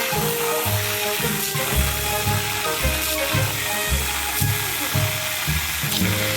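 Background music: pitched melody notes over a bass line that changes at a regular pace, with a steady hiss underneath.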